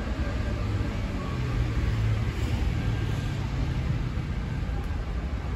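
Street traffic noise: a steady low rumble of passing motor vehicles. A heavier engine hum comes up about a second in and fades again after about four seconds.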